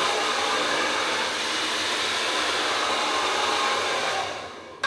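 Handheld hair dryer blowing at full speed, a steady loud rush of air with a motor whine, fading out near the end as it is switched off, then a short click.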